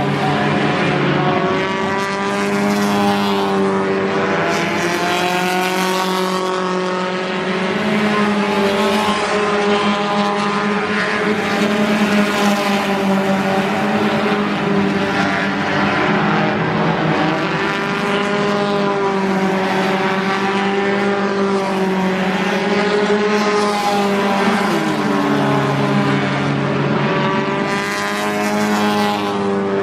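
Several four-cylinder stock car engines racing together around a short oval at high revs, their overlapping pitches sliding up and down as the drivers lift and accelerate through the turns.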